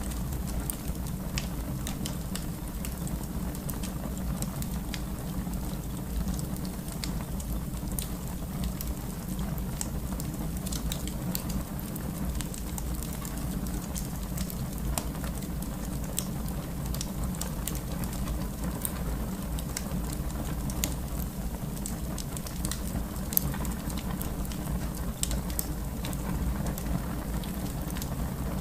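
Wood fire in a fireplace crackling: irregular sharp pops and snaps over a steady low rumble of flames, with one louder pop late on.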